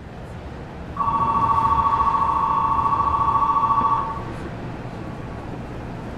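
Electronic bell trilling on two close tones for about three seconds, starting about a second in, over the low steady hum inside a Tokyu 5000-series train car.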